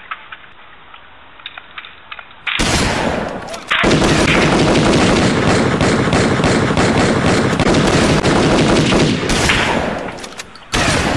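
Dubbed-in automatic gunfire sound effect: a burst starts about two and a half seconds in, then rapid continuous fire for about five seconds that tapers off, and another burst near the end.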